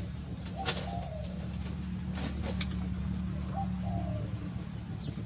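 A dove cooing, a short note followed by a falling coo, heard twice about three seconds apart over a steady low hum. There are a few sharp clicks in between.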